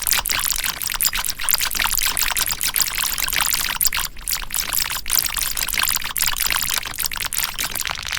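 Keyboard keys clattering in a fast, dense run of irregular clicks.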